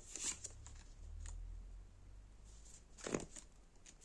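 Tarot cards being drawn and laid out on a table: a few short, faint rustles and taps, the clearest about three seconds in, with a low bump of handling in the first two seconds.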